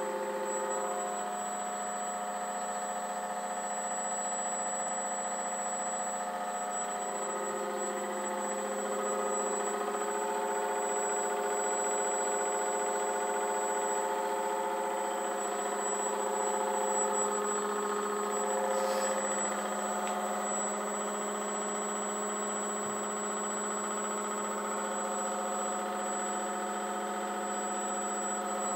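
The electric motor and propeller of an FMS Me 109 RC model running steadily on the bench, a continuous whine made of several held tones.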